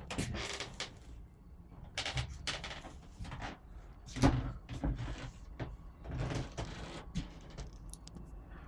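Irregular knocks, clicks and rustling of objects being handled and moved about.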